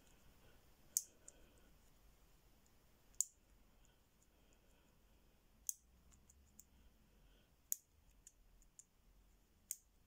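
Number wheels of a four-wheel combination padlock clicking as they are turned a notch at a time with the shackle pulled under tension, the wheels being felt for the tightest one to decode the combination. Faint, sparse clicks at uneven intervals, about half a dozen sharper ones among smaller ticks.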